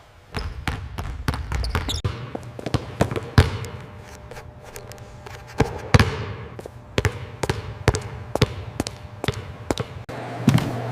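Basketballs bouncing on a gym floor: a run of sharp, irregular thuds, about three a second.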